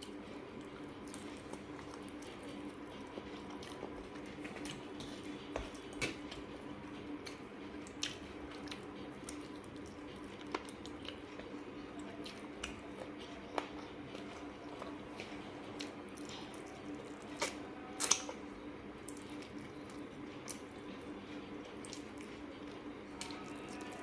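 Close-up eating sounds of chicken curry with plain rice and masoor dal: wet, squishy chewing with scattered short smacks and clicks, the loudest about 18 seconds in, over a steady low hum.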